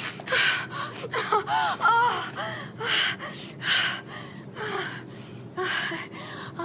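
A person gasping and moaning in a run of short breathy bursts, with brief wavering cries in between: a comic sneezing fit played as orgasmic shuddering.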